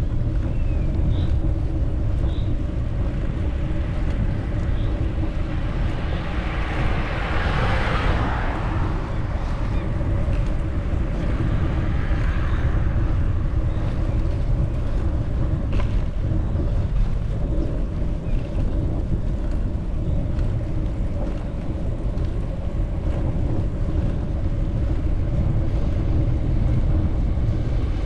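Wind buffeting the microphone with a steady low rumble, as when riding a bicycle into the wind. A broad rushing swell rises and fades about seven to nine seconds in, and a few short chirps sound near the start.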